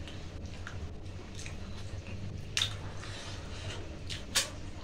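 Eating by hand: fingers squishing rice and pork leg on plates and chewing, with small ticks and two sharper clicks, about two and a half and four and a half seconds in, over a steady low hum.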